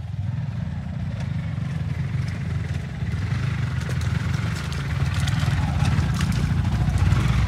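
Motor vehicle on the move: a dense, low rumble of engine and road noise, with light scattered rattles.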